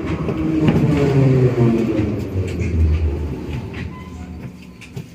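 Metro train's traction motors whining down in pitch as the train brakes to a stop in a station. The running noise fades away over the last couple of seconds.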